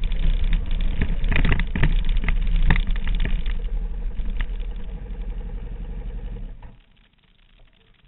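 Sport motorcycle engine running at low speed with uneven surges, settling to a steady idle and then switched off about seven seconds in.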